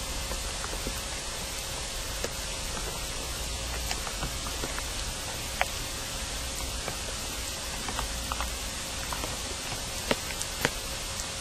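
Steady hiss with a faint steady hum and scattered sharp clicks, the loudest two near the end, which the uploaders claim are sounds of people in a tunnel about 20 m underground.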